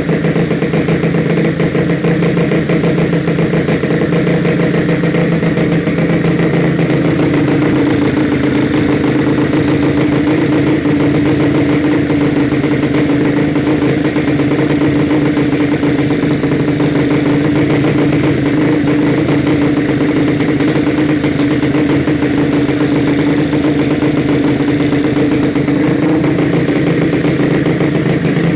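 Suzuki Nex scooter engine, tuned up to 130cc, idling at a steady speed.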